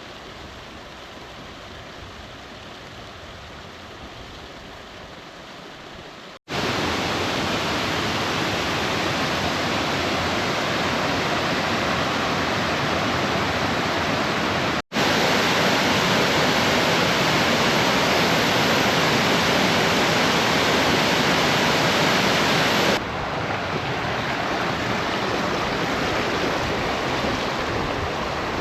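The River Swale rushing, a steady, even hiss of running water. It starts quieter, jumps much louder about six seconds in, and cuts briefly twice more as the recording changes.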